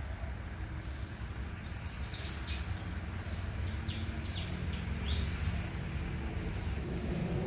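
Squirrel giving a run of short, high chirps, about a dozen over three seconds, the last a quick rising note, over a steady low rumble.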